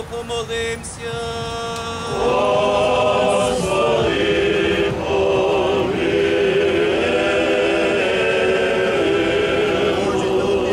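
A choir singing a slow Ukrainian Catholic funeral chant in long held notes with vibrato; a few voices at first, the fuller group joining about two seconds in.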